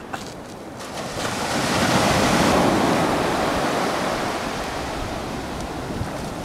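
Surf breaking and washing up a sandy beach. The wash swells about a second in, is loudest around two to three seconds, then slowly eases.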